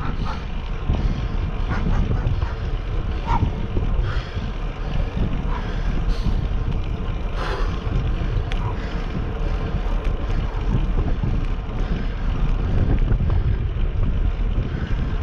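Wind buffeting a GoPro's microphone on a moving bicycle: a steady, dense low rumble with no pauses, and a few faint short sounds scattered through it.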